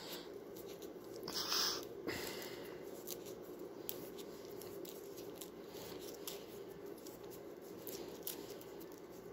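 Faint crinkling and small ticks of waxed floral tape being stretched and wound around a wooden chopstick stem, with a louder rustle about a second and a half in, over a steady low hum.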